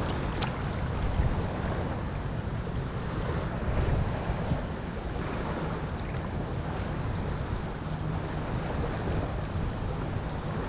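Wind on the microphone over water sloshing in shallow surf around a wading detectorist, a steady rushing noise with a few soft swells.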